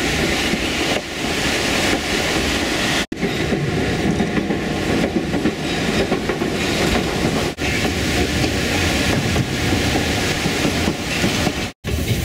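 White Pass & Yukon Route narrow-gauge passenger train running along the rails, with a steady rumble and wheel clatter. The sound drops out briefly three times: about three seconds in, at about seven and a half seconds and near the end.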